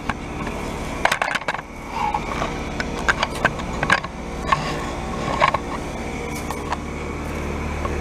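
Carrier Comfort heat pump outdoor units running with a steady low hum, overlaid by irregular sharp clicks and crunches.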